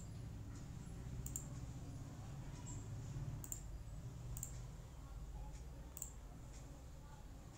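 Computer mouse button clicking four or five times, short sharp press-and-release clicks a second or two apart, over a low steady hum.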